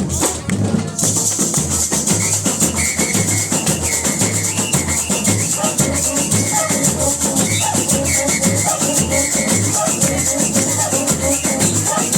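Samba-style batucada percussion playing a steady groove: regular bass-drum beats under a continuous bright rattle of shakers, with some pitched melodic figures over the top.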